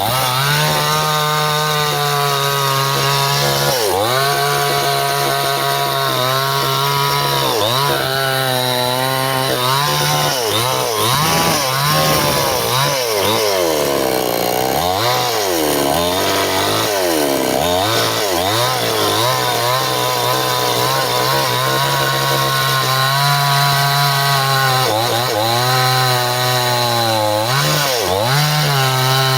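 Stihl two-stroke chainsaw running at high revs and cutting into bendo wood, its engine note dipping over and over as the chain bites under load and rising again between cuts. The heaviest loading comes midway through, with a long stretch of wavering, bogged-down pitch.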